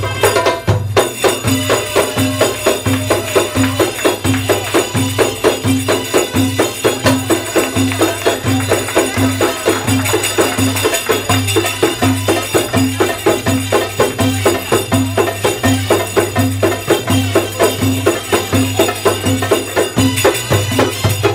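Egyptian tanoura dance music played on hand-held frame drums with jingles: fast, even strokes over a deep, regular bass beat. The music stops abruptly at the very end.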